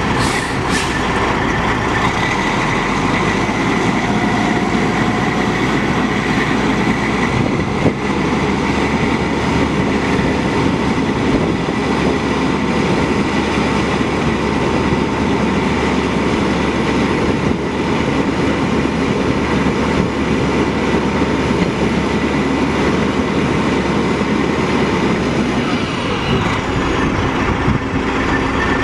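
Detroit Diesel Series 60 12.7-litre inline-six turbo diesel of a 1995 International 9200 dump truck running steadily while the PTO-driven hydraulic hoist raises the steel dump bed, with a thin steady whine over the engine. The low engine note shifts about two seconds in and again near the end.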